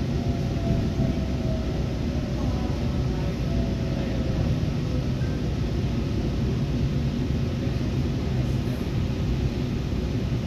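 Train rumbling at the platform, a steady low rumble with a faint whine that sinks slightly in pitch over the first few seconds.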